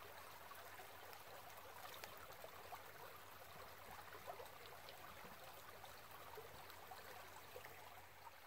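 Small creek babbling, a faint, steady trickle of shallow water.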